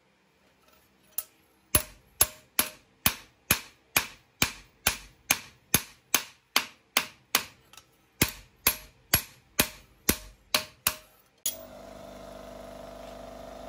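Hand hammer forging steel, struck in an even rhythm of a little over two blows a second, with one short break partway through. Near the end the hammering stops and a steady machine hum starts.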